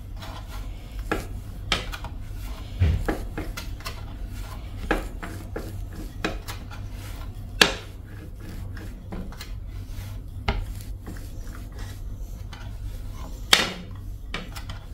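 Wooden rolling pin rolling out dough on a wooden board: soft rubbing strokes with scattered light knocks and clicks as the pin is set down and shifted, over a low steady hum.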